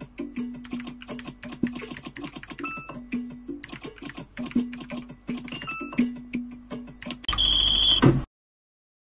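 Rapid typing on a Corsair K70 Pro Mini Wireless 60% mechanical gaming keyboard: a quick run of key clicks over the typing game's background music, with short beeps. About seven seconds in, a louder burst of game sound plays, then the sound cuts off suddenly.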